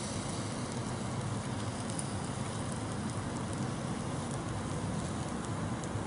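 Lit charcoal barbecue bucket burning: a steady crackling hiss with scattered small pops.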